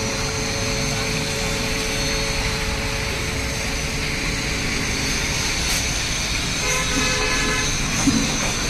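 Steady road traffic noise with a constant low engine rumble from passing vehicles.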